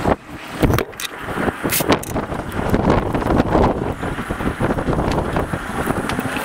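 Green Frog Tape masking tape being pulled off the roll and pressed down along a boat's roof edge: irregular short ripping and rubbing sounds over a steady rush of noise.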